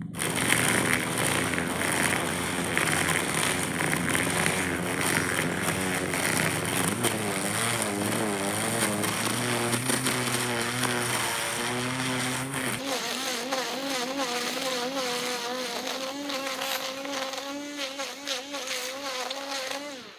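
String trimmer (weed eater) motor running continuously, its buzzing pitch wavering up and down as the line cuts. About two-thirds of the way through, the low rumble drops away and the motor settles into a steadier, higher buzz.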